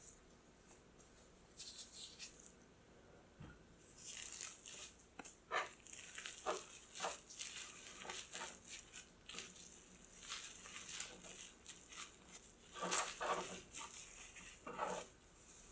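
Food being prepared by hand: a run of short, irregular scraping and rustling strokes.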